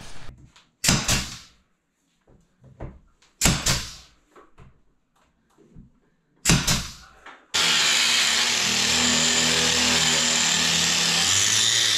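Three short bursts of a power drill, then an angle grinder starting suddenly about three-quarters of the way in and running steadily against a pine board, roughing up the wood's surface.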